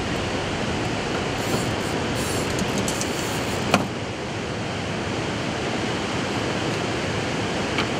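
Steady rushing noise with no clear pitch, with one sharp click nearly four seconds in.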